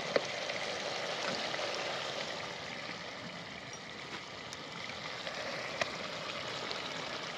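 Steady low hiss of mutton simmering in a clay pot over a wood fire, with a few faint clicks.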